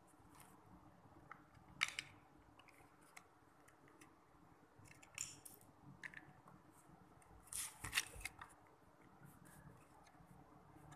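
Plastic Lego bricks clicking and clattering as hands pick up pieces and press them onto a baseplate: a few separate sharp clicks, then a quick cluster of clicks about eight seconds in.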